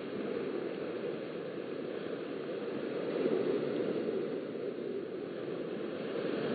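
Steady rushing wash of small waves breaking on a sandy beach, heard through a webcam's microphone, swelling slightly about three seconds in.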